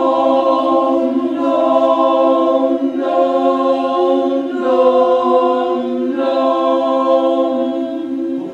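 Barbershop chorus singing a cappella in a tuning warm-up, holding long sustained chords that shift to new chords a few times.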